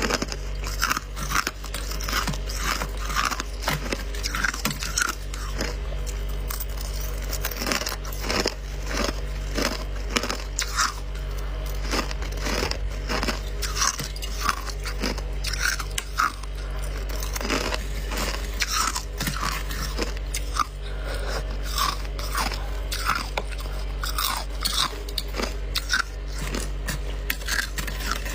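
Irregular crunching: many sharp crackling clicks, several a second, over a steady low hum.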